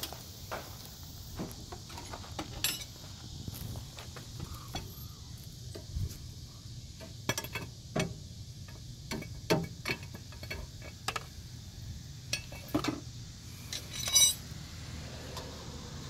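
Irregular metallic clinks and clicks of hand tools worked against a pickup truck's front suspension parts, with a short flurry of quick clicks near the end. A steady high insect drone runs underneath.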